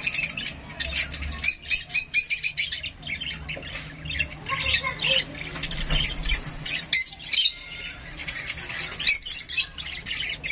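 Young parrot squawking harshly, with a fast run of about eight shrill squawks a second around two seconds in, then scattered squawks with louder bursts later on.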